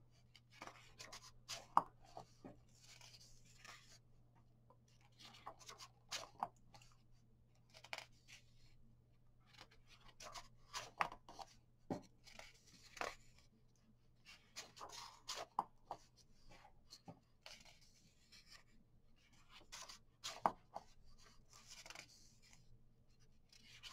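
Pages of a large softcover coloring book being turned and smoothed by hand: faint paper rustles and flicks in bursts every few seconds. A faint steady low hum runs underneath.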